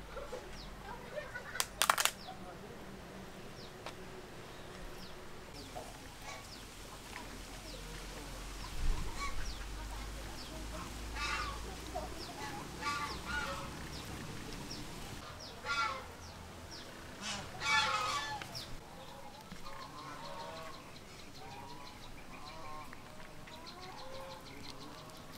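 Domestic fowl calling now and then in short pitched calls, with a couple of sharp knocks about two seconds in.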